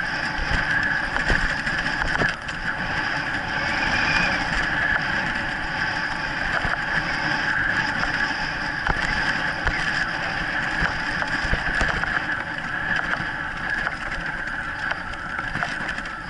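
A dog-sled training cart (dryland rig) rolling fast over a rough grass and dirt trail behind a husky team. The wheels and frame give a steady rattling rumble, with frequent small knocks from the bumps.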